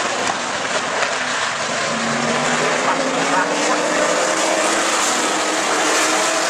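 A pack of sportsman stock cars racing on an oval, several engines running hard at once, their pitches rising and falling as the cars pass, over a steady rushing noise.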